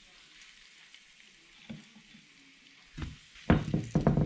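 Floured bream and red mullet fillets frying in shallow oil in a small non-stick pan, a faint steady sizzle. About three seconds in come a few loud knocks and thumps.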